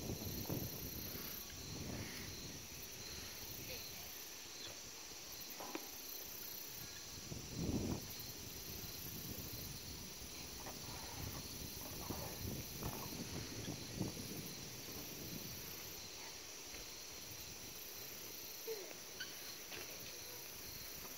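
Outdoor background of insects chirring steadily at a high pitch, with a few low muffled bumps now and then, the loudest about eight seconds in.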